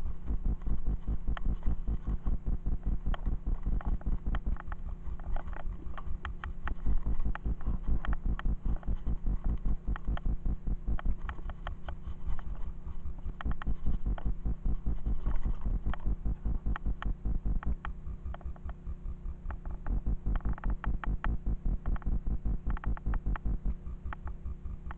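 Electronic dance music with a steady pulsing beat over a sustained low synth hum.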